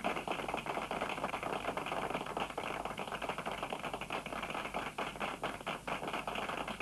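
A small group of people clapping: steady applause of many hands, without music.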